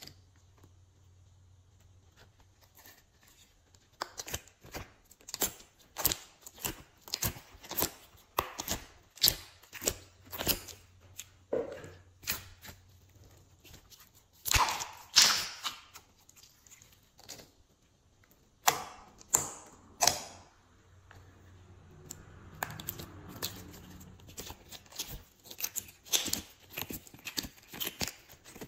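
Glossy slime being squeezed and stretched by hand, giving a run of sticky clicks, pops and squelches, several a second. The pops start about four seconds in, with a few louder pops around the middle.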